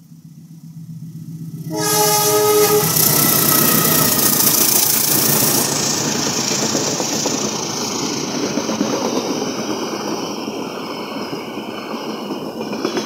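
KA Logawa passenger train approaching, growing louder, then sounding its horn once for about a second before rushing past close by. Loud, steady wheel and carriage noise follows.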